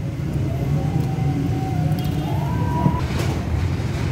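Steady low rumble of road traffic, with a faint engine tone slowly rising in pitch through the first three seconds. A few sharp metallic clicks of a wrench on suspension bolts come around two and three seconds in.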